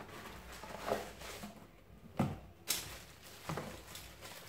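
Handling noise from unpacked kit: a few light knocks and clicks with soft rustling in between, the sharpest two a little past two seconds in.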